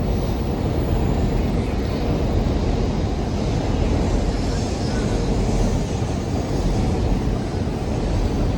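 Steady city street din: a constant low rumble of traffic with indistinct voices of people nearby.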